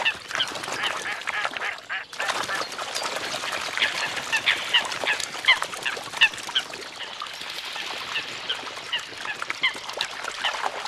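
Eurasian coots calling with many short, sharp, repeated calls over splashing water as they chase and fight on the surface.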